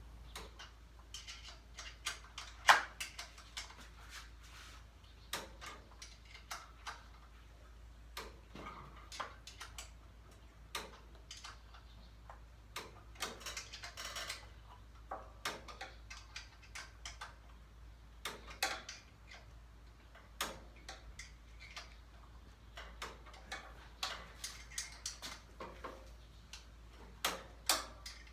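Irregular metallic clicks and taps of a non-ratcheting 3/8 in. wrench being fitted on and turning the lawnmower's cowling bolts, a short turn at a time; one louder clack about three seconds in.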